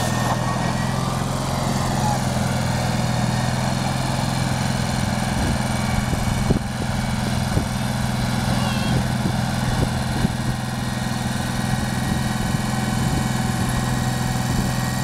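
John Deere 317 garden tractor's engine running steadily at an even pitch, with a few sharp clicks in the middle while its front blade pushes snow.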